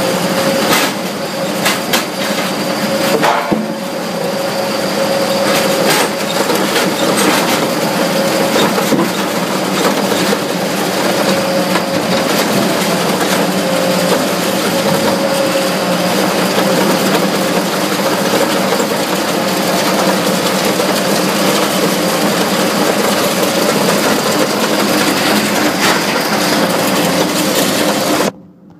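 Cambio 45 mobile rotor debarker running with logs being fed through, a steady machine hum under scraping and crushing wood noise, with several sharp knocks in the first few seconds. The sound drops out briefly near the end.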